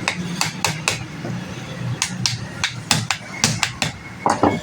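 Irregular sharp metal clicks and taps from tools and parts being handled while an angle grinder is repaired, about a dozen in a few seconds. Two heavier knocks come near the end.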